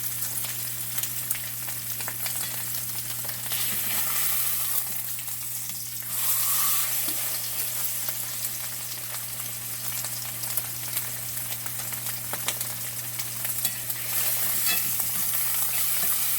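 Bone-in ribeye steak searing in butter in a smoking-hot cast iron skillet: a steady crackling sizzle that swells about six seconds in and again near the end. A steady low hum runs underneath.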